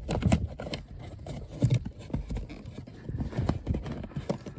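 Irregular knocks, taps and scrapes of hands working plastic parts around a car's cabin air filter housing.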